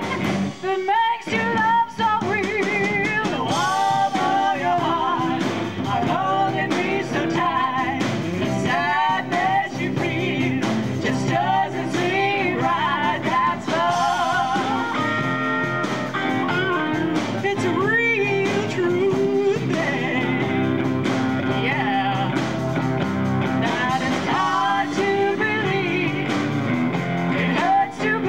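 Live band playing a pop song: women singing the melody over electric guitar and drums.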